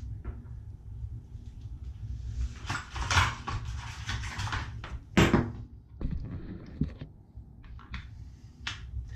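Handling noise as tools and parts are moved about: a rustling stretch, then a sharp knock about five seconds in, then a few light clicks.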